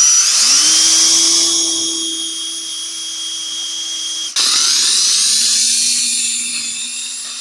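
Cordless drill boring a hole through a small sheet-metal plate, a steady motor whine with a high-pitched squeal from the bit in the metal. About four seconds in the trigger is let off for an instant and the drill starts again at a slightly lower speed.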